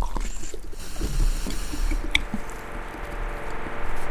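Thick gel squishing and dripping as a gel-filled stretchy rubber toy is squeezed and cut open, with a sharp click about two seconds in.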